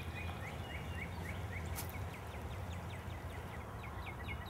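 Outdoor ambience with a rapid, steady series of short high chirps, several a second, from a calling animal, over a low steady rumble.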